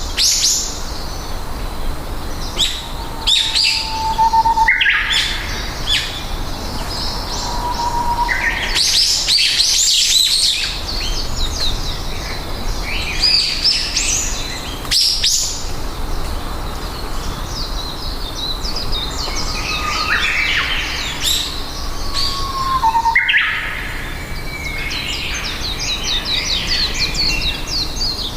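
Several small birds chirping and trilling, their calls overlapping throughout, with a few short, slightly sliding whistled notes now and then.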